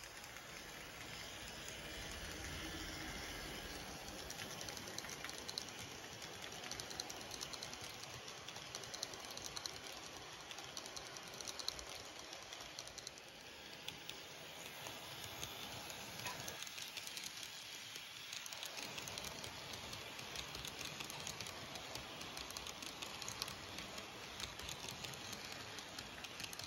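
N scale model train running around sectional track: a steady light rattle with many small clicks as the wheels pass over the rail joints.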